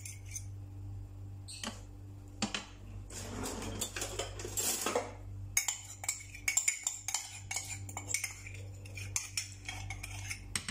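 A wire whisk clinking against a bowl as butter is whisked into water: a few single taps early on, then from about halfway a quick, rapid run of clicks. A soft rushing sound comes in for a couple of seconds about three seconds in.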